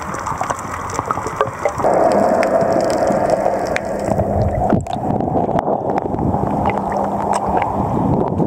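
Water noise on a diving camera's housing, a dense sloshing rush full of small clicks, with a steady low hum underneath. It changes a little past the middle as the camera comes up through the water and breaks the surface.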